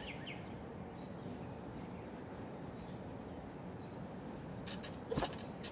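Steady outdoor background noise, mostly low in pitch. Near the end comes a quick run of sharp clicks with a brief squeak among them.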